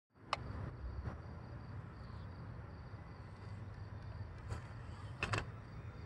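Faint whirring of the small electric motors of 1/24-scale RC rock crawlers approaching over a low steady hum, with a few sharp clicks and taps, the loudest about a third of a second in and another pair a little after five seconds.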